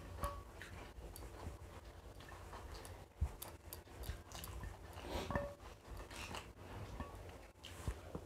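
Eating by hand: soft chewing and scattered small clicks and taps of fingers and rice on glass plates as biryani is mixed and scooped up.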